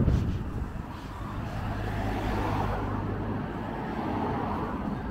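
Road traffic noise, with a vehicle passing about two seconds in, its sound swelling and then fading.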